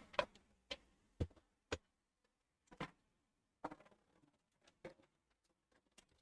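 Irregular sharp clicks and light knocks of a graphics card and its metal bracket being handled in an open desktop PC case, about eight in all, the loudest in the first two seconds.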